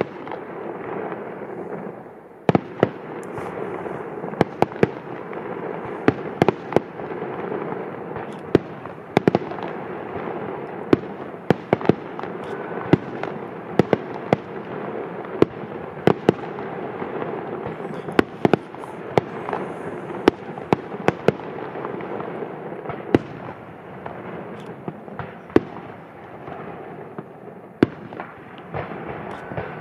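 Fireworks display: sharp bangs at irregular intervals, several close together at times, over a continuous noisy background.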